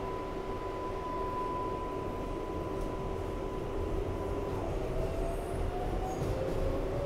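R188 subway train heard from inside the car: a steady high electric tone over a low rumble, then, from about four and a half seconds in, the propulsion whine rising in pitch as the train starts to accelerate.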